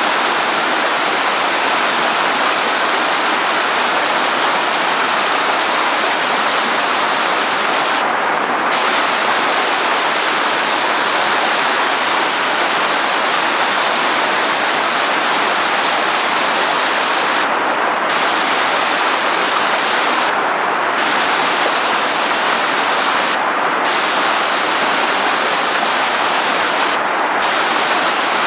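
Rushing water from a fast-flowing mountain stream, a steady, even rush with no pauses.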